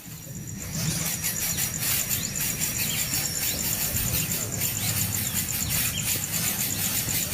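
Nestling birds calling with many short, high cheeps over a steady, pulsing high buzz; the sound grows louder about a second in.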